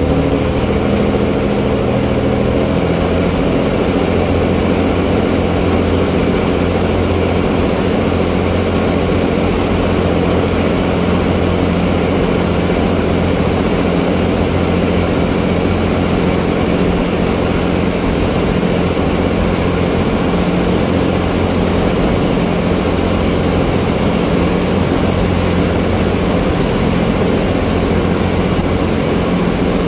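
A ferry's engine running steadily under way, over the rush of its churning wake and wind on the water. The engine note changes about three seconds in, then holds steady.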